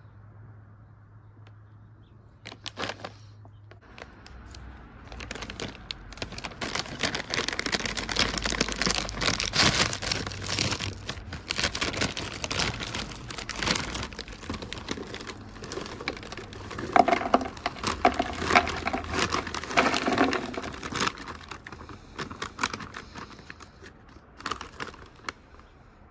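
Plastic snack bag crinkling and tearing as it is opened and handled, then puffed snack crunchies pouring out of it and tumbling into a clear plastic box. It builds up after about four seconds, stays loud through most of the middle and dies away to a few scattered clicks near the end.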